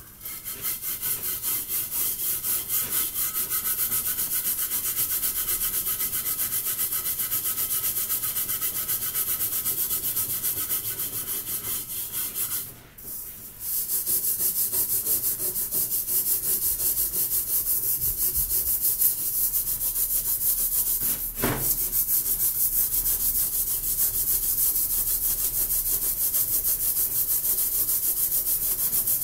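Steel-wool scourer scrubbing the soot-blackened bottom of a metal pot with a homemade cleaning paste, in rapid, steady back-and-forth strokes. The scrubbing pauses briefly about halfway through, and there is a single knock about two thirds of the way in.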